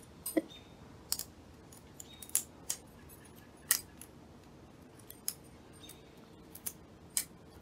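A thin plastic craft sheet clicking and crinkling in the fingers as small 3D butterflies are worked out of it: a dozen or so irregular, sharp clicks.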